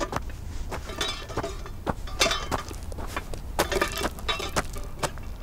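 A rapid, irregular series of sharp clicks and clinks, with louder crunching bursts about a second in, just past two seconds and around three and a half seconds, over a steady low rumble.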